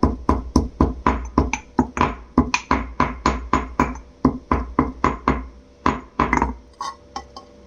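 Cinnamon bark being pounded with a pestle in a mortar: sharp, rhythmic strikes, about three to four a second. The strikes stop about six and a half seconds in, followed by a few lighter taps.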